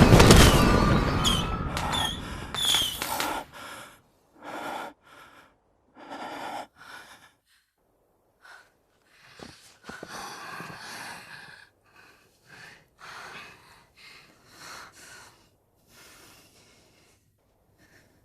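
A loud blast dies away over the first three seconds or so, with a few short high sounds in it; then people breathe hard and gasp in short, separate breaths.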